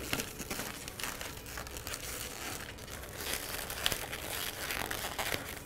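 Inflated latex modelling balloon being handled and twisted, the rubber rubbing and creaking against fingers and against itself, with a sharp tick about four seconds in.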